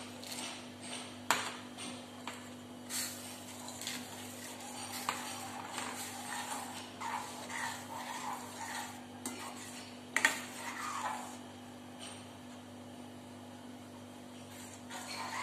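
A steel spoon stirring vermicelli kheer in a stainless steel kadai, scraping and clinking against the pan, with a small bowl tapping the rim as dry fruits are tipped in at the start. The sharpest clink comes about ten seconds in.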